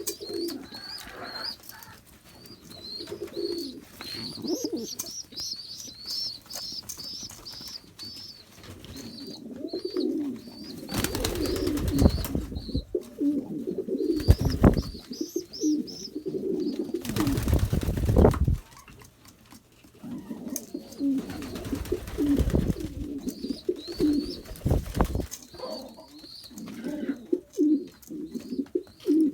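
Loft pigeons cooing on and off, with a quick series of short, high chirps repeating a few times a second. Several loud rushing bursts of noise break in midway, each lasting about a second or two.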